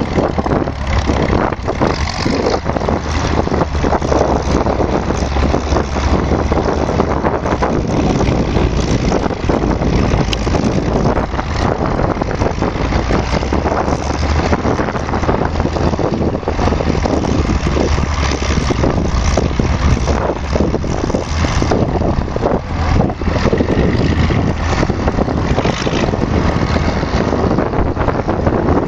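Vintage crawler tractor engine running steadily while the tractor works dirt, pulling a towed earth scraper and pushing soil with its dozer blade.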